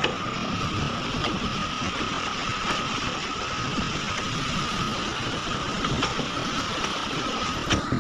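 Heavy earthmoving machinery, an excavator at work loading overburden, running steadily with a held high whine and a few faint clicks.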